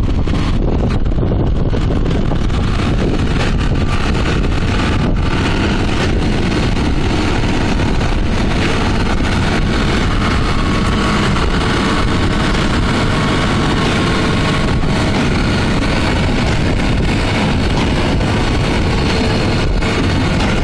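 Claas Arion 640 tractor running steadily while its Claas Quadrant 3300 square baler works.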